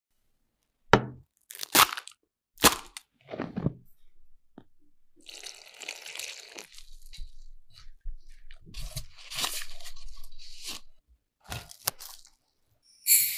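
Kitchen prep sounds. A few sharp, crunchy cracks come in the first four seconds. Water is then poured onto flour in a glass bowl for a couple of seconds, followed by handling noises and a few sharp knocks against the bowl.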